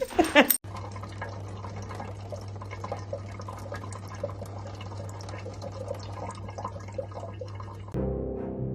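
Water running, with small drips and crackles over a steady low hum. Music comes in near the end.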